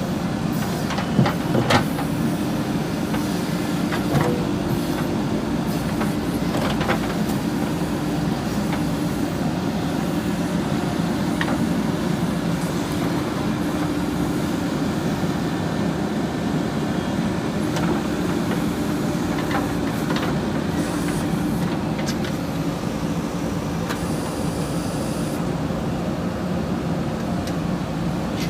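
Diesel engine of a JCB 3DX backhoe loader running steadily under work, with a few sharp knocks, most of them in the first several seconds.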